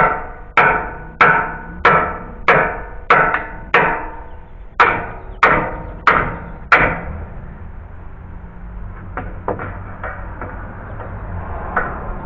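Hammer striking a nail puller to drive its jaws under a nail head in deck wood: about a dozen evenly spaced ringing blows, roughly one every half second or so, stopping about seven seconds in, followed by a few lighter knocks near the end.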